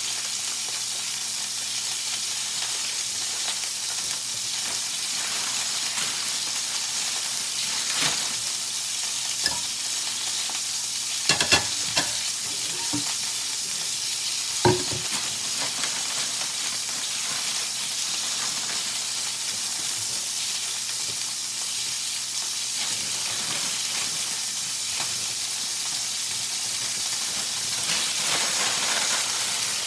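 New York strip steak sizzling in a nonstick frying pan: a steady frying hiss, with a few sharp pops of spattering fat between about eight and fifteen seconds in.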